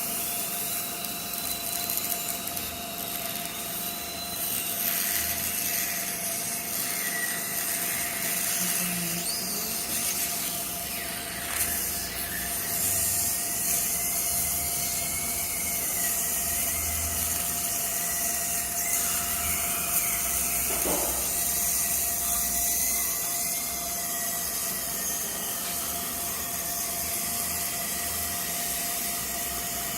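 Dental drill running with a high whine that wavers in pitch as it cuts, over a steady hiss.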